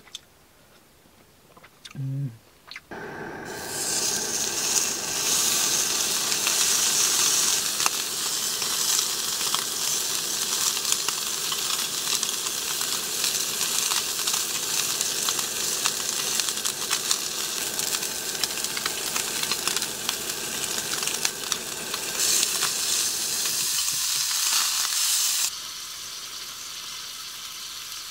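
Slices of raw beef sizzling and spattering in a hot skillet. The sizzle starts abruptly about three seconds in and drops off sharply near the end.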